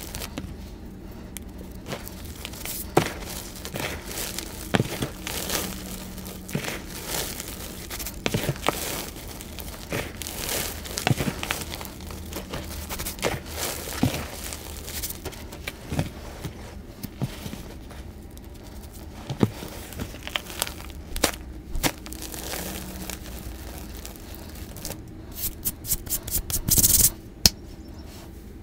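Dyed gym chalk being squeezed and crumbled between bare hands: soft crunching and crumbling of powdery chalk, broken by irregular sharp crackles, with a quick run of crackles near the end.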